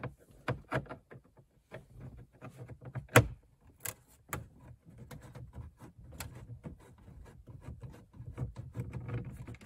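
Irregular small clicks and ticks of a 7 mm socket working the two screws out of the top of a Chevy Caprice's plastic instrument cluster bezel. One sharper click comes about three seconds in.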